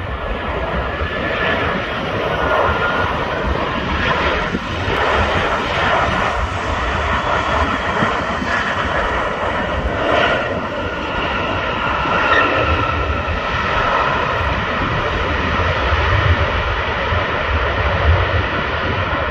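Airliner jet engines running loud and steady, a faint whine over a deep rumble.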